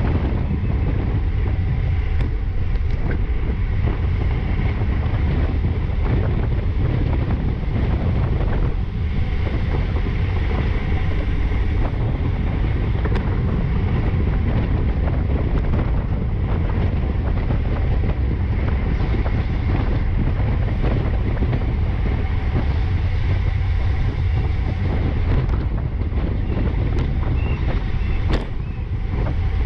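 Steady wind rush buffeting the microphone of an action camera on a road bicycle riding at about 20 mph in a racing pack, with tyre and drivetrain noise underneath and a few short clicks.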